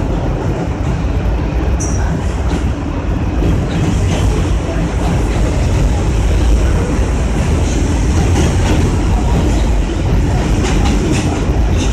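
New York City subway train running on elevated track, heard from inside at the front window: a steady loud rumble of wheels on rail with scattered clicks, as a train on the next track passes alongside.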